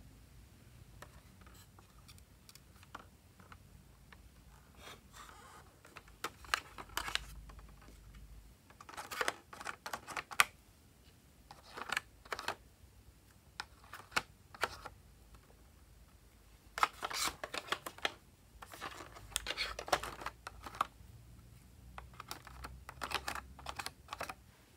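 Small plastic spatula scraping and clicking in a plastic toy makeup compact as glittery makeup is scooped out, heard in short clusters of clicks and scrapes every second or two.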